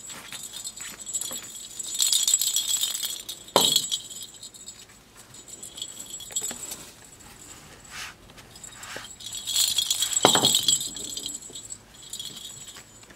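Plastic lattice toy ball with a bell inside jingling as it is shaken, in two long spells with smaller jingles between. Each long spell ends in a sharp thump, the loudest sound.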